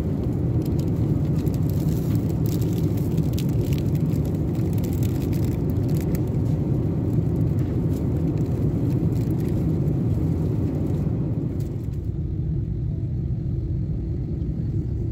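Steady low roar of a Boeing 747's cabin in flight, engines and airflow, with the crinkle of a plastic food wrapper being handled in the first half. The crinkling stops about two-thirds of the way through and the roar goes on a little duller.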